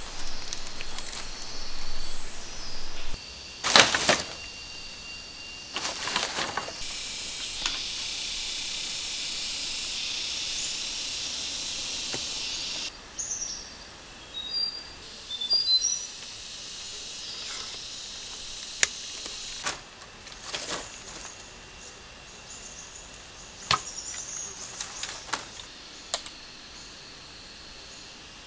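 Sharp knocks and cracks of a knife chopping and splitting green bamboo, a handful spread several seconds apart, the loudest about four seconds in. Between them, jungle ambience: a steady high buzz that cuts off suddenly, then a few short bird chirps.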